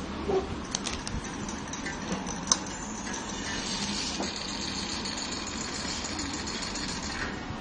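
Steady background hum and hiss, with a few light clicks and taps, the loudest about two and a half seconds in.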